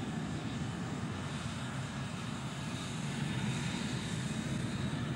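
Aircraft engine running steadily: a continuous low rumble with a hiss above it.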